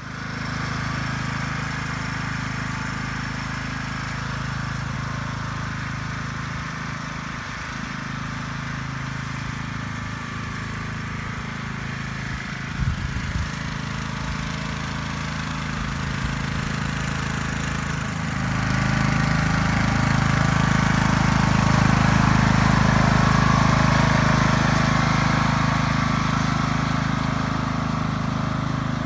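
Single-cylinder-style small engine of a ride-on lawn mower running steadily as the tractor drives across the lawn, with a couple of brief knocks near the middle. It grows louder about two-thirds of the way through.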